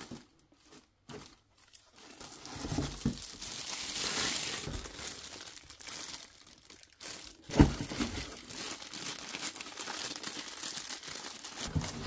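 Clear plastic wrap crinkling and rustling as vacuum parts are handled and lifted out of their cardboard box, starting after about two quiet seconds. A single sharp knock about halfway through.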